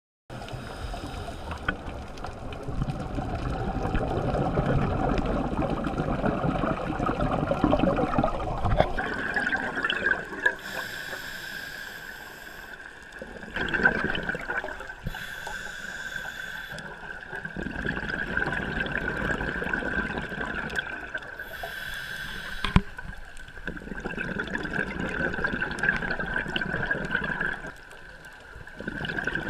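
Scuba diver breathing through a regulator underwater: long stretches of gurgling exhaust bubbles alternating with three short hissing inhales. A steady high whine runs underneath from about nine seconds in.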